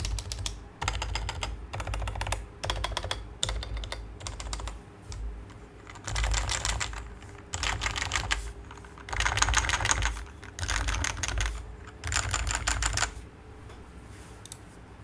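Typing on a Geonworks F1-8X keyboard fitted with Topre electrostatic capacitive switches, in bursts of rapid keystrokes separated by short pauses, stopping about 13 seconds in. The sound is full, without the hollow reverb of a roomier plastic case.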